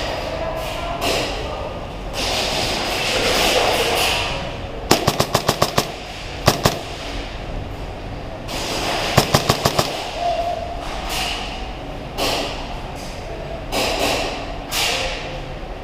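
Airsoft guns firing: a rapid burst of about seven or eight shots about five seconds in, a single shot a moment later, and another burst of similar length about nine seconds in, over a steady background hubbub of the game.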